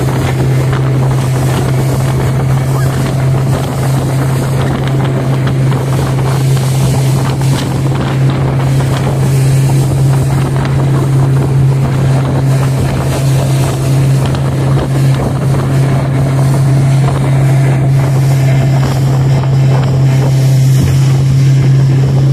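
Motorboat engine running at a steady pitch, with a constant low hum. Wind buffets the microphone and water rushes past the hull.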